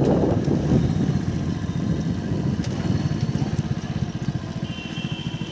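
A vehicle's engine running with a fast low pulsing while on the move. The wind rush on the microphone dies away in the first half-second, and the sound slowly gets quieter.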